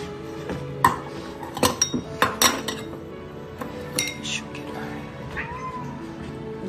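Stainless steel cat-food bowls clinking sharply as cats eat dry food from them: a quick cluster of clinks in the first three seconds and another about four seconds in.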